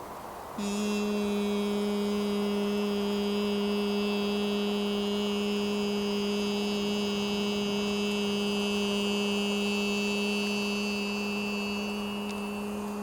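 A man's voice chanting the qigong healing sound 'E' as one long, steady 'eee' vowel on a single held pitch. It starts about half a second in and eases off slightly near the end.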